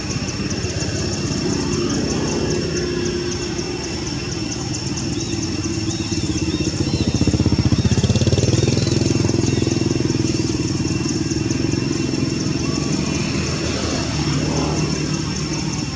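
A vehicle engine running close by with a low, pulsing rumble. It grows louder to a peak about halfway through, then eases off. A steady high-pitched buzz sits over it.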